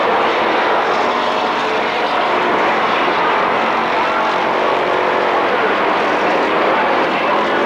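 Several stock race cars' engines running hard together in a pack at racing speed, their overlapping notes blending into one steady, loud drone.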